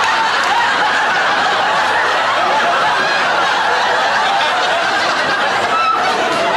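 Studio audience laughing, many voices together and without a break.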